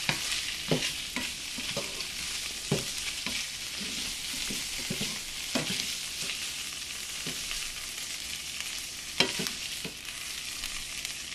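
Butter sizzling steadily in a hot frying pan, with the scrape and clink of a fork and spatula scooping chopped salmon out of the pan. A couple of sharper clinks come about nine seconds in.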